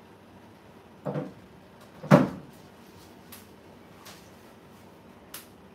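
Two knocks in a small kitchen about a second apart, the second much the louder and like a cupboard door banging shut, then a few light clicks and taps.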